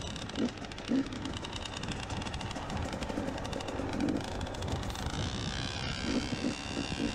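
Dirt bike engine running at low trail speed, its note rising and falling with the throttle as the bike picks its way over rocky ground.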